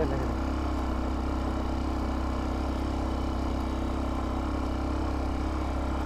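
Hartford VR 150 motorcycle engine running at a steady speed on the move, an even, unchanging drone.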